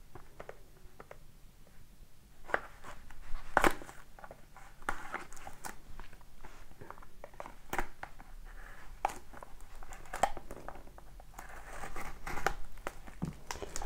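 A sealed hockey card box being opened and its packaging handled: scattered rustling and crinkling with light clicks, a few sharper clicks among them.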